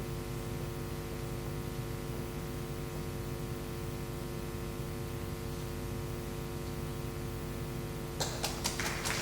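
Steady electrical hum from the hall's sound system. About eight seconds in, scattered claps start and build into applause near the end.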